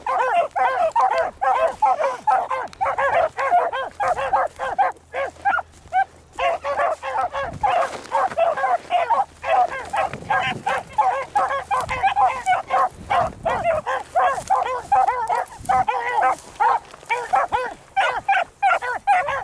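Beagles baying almost without a break as they run a rabbit on its scent, several voices overlapping.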